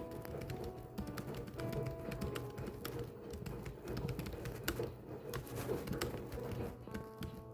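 Typewriter keys striking in an irregular, continuous run of clicks, over soft background music.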